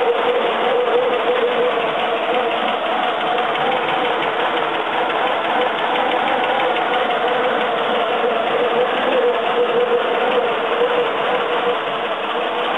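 Citroën GS air-cooled flat-four engine running steadily at an even speed.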